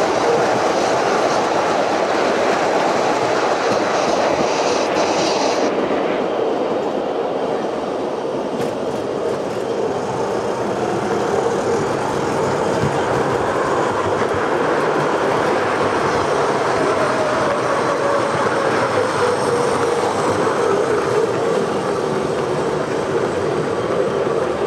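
Electric model trains running on the layout track, with a continuous rumble and clatter of wheels on rails and a faint motor whine. The brighter, hissier part of the sound falls away about six seconds in as the nearest train runs clear.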